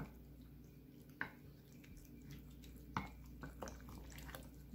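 Wooden spatula stirring raw chicken pieces through a wet marinade in a ceramic bowl: faint squelching with a few light taps against the bowl.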